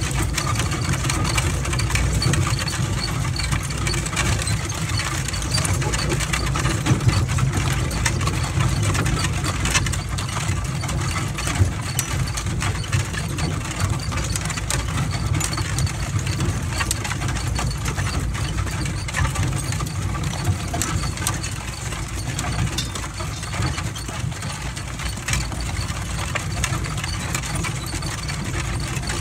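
A mule-drawn wagon rolling and rattling over a gravel road, with a steady low rumble and a dense patter of clicks from the wheels, the chains and the harness.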